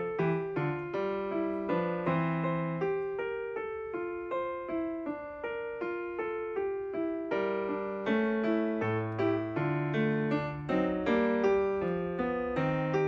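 Background piano music: a flowing melody of struck notes, each fading away, about two or three a second over lower bass notes.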